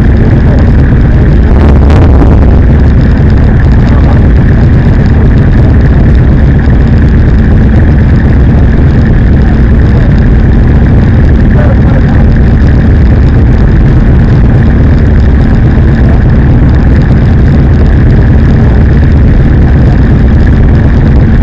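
Motorcycle engine running steadily, loud and unbroken, close to the microphone.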